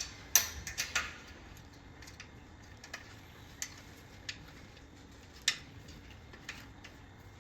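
Irregular light metallic clicks and taps, about eight to ten of them, as the iron rear rack and its fittings are worked onto the bike frame; the loudest come just after the start and about five and a half seconds in.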